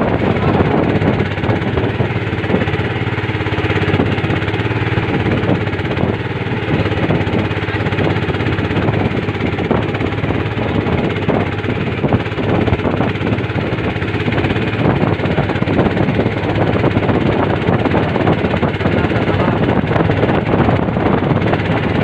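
Small boat's engine running steadily, with waves splashing and rushing against the hull as it pushes through rough, choppy sea.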